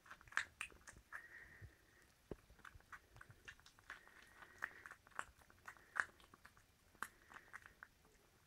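Seven-week-old border terrier x Jack Russell puppies quietly mouthing and play-biting each other: soft chewing and lip-smacking with many small, scattered clicks.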